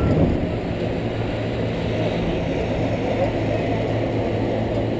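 Steady rumble of wind buffeting and road noise on a GoPro HD Hero2's microphone carried by a cyclist riding along a paved path, with a brief knock right at the start.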